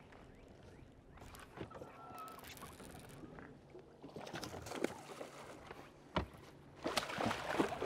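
Water splashing and scattered knocks at a bass boat while a bass is fought to the boat and landed. The splashing comes in two spells, about four seconds in and again near the end, with a single sharp knock between them.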